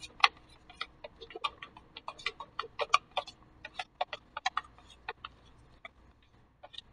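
Spoon clicking and tapping against a glass bowl while stirring paint into glue: quick, irregular taps several times a second, thinning out near the end.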